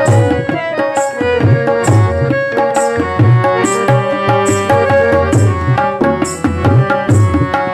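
Instrumental ghazal interlude: a harmonium plays a sustained melody over tabla, whose deep bass-drum strokes and crisp treble-drum strikes keep a steady rhythm. There is no singing.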